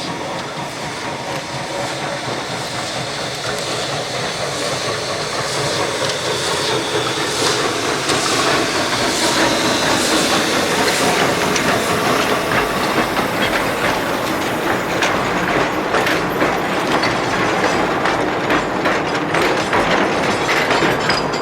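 Narrow-gauge steam locomotive and its train approaching, its running and hissing getting steadily louder. Rattling wheel clicks build up over the second half.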